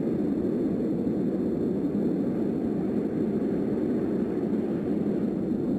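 Steady low rumbling drone of noise, even in level, with no distinct hits or tones in it.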